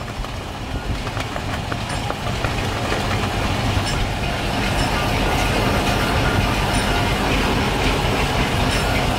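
Steady rumbling noise that grows louder over the first few seconds and then holds steady.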